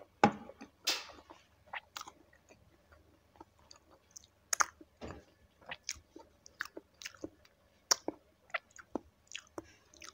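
Close-up chewing of crispy fried chicken feet, with irregular crunches and mouth clicks.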